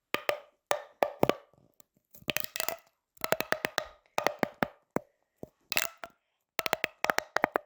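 A fidget toy clicked and tapped for an ASMR sound: sharp clicks in quick clusters of two to five, with short pauses between them.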